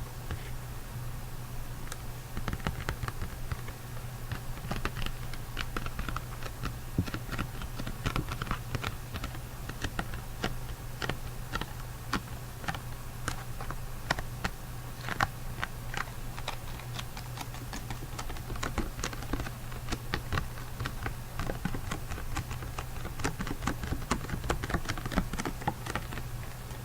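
Rapid, irregular small clicks and ticks, like tapping or scratching, over a steady low hum.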